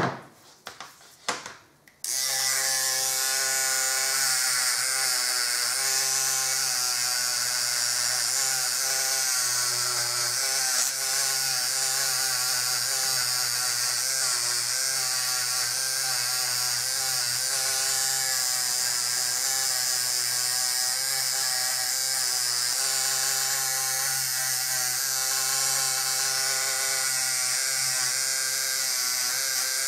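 A small electric power tool running continuously, starting abruptly about two seconds in: a steady motor whine that wavers slightly in pitch, with a strong hiss.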